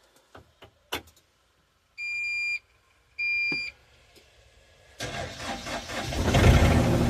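Cold start of a mini excavator that has sat unused in the cold: a few clicks, two high beeps, then about five seconds in the diesel engine cranks and catches at once, running steadily.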